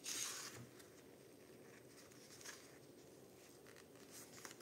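Faint rustle of paper being folded and pressed flat over cardboard by hand: a short rustle at the start, then softer ones about two and a half seconds in and near the end.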